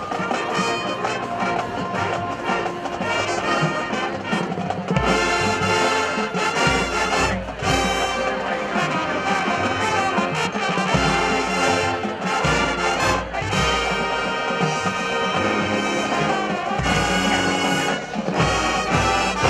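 College marching band playing, brass carrying held chords; deep low notes come in about five seconds in and the full band plays on loudly.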